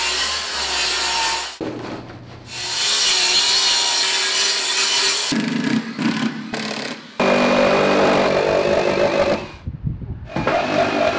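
Power saws cutting plywood in several short, abruptly cut bursts: first a circular saw run along a guide rail, then, in the second half, a cordless reciprocating saw cutting into the edge of the plywood platform.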